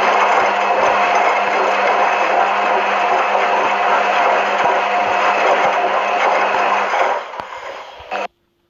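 Washing machine running: a loud, steady whirring noise over a constant low hum. It weakens about seven seconds in and cuts off abruptly just after eight seconds.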